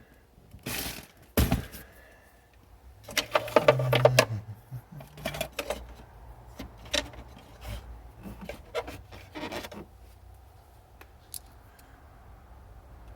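Small metal hardware clinking and rattling as loose screws are handled and rummaged through, with scattered knocks and a dense burst of clatter about three to four seconds in.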